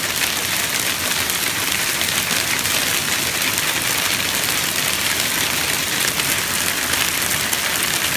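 Hail falling hard on an asphalt shingle roof and the ground: a dense, steady hiss of countless small impacts with no let-up.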